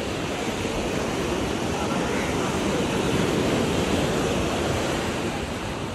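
Steady rush of sea surf breaking on a sandy beach, swelling slightly around the middle.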